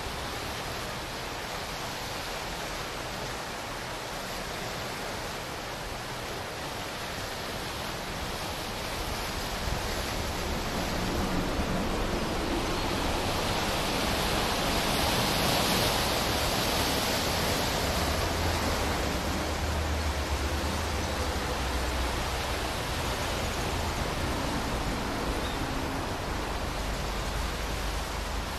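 Sea surf washing against a rocky shore, with wind buffeting the microphone. The wash swells to its loudest about halfway through and then eases a little.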